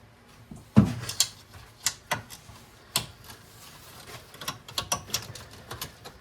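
A run of sharp clicks and knocks, the loudest about a second in, then a quicker patter of small clicks near the end: a flathead screwdriver prying out the hood-latch clips on a BMW E46.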